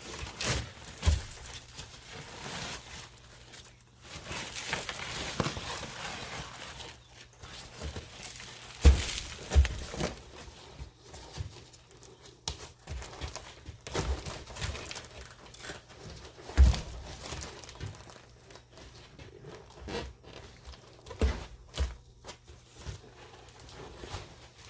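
Vinyl seat cover and foam padding of a 1979 Fiat Spider 124 seat back being handled and pulled apart: irregular rustling and crinkling, with scattered knocks and thumps.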